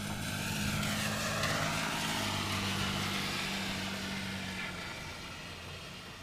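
A passing vehicle: a rushing hiss that swells over the first second or two and then slowly fades, over a steady low hum that stops about five seconds in.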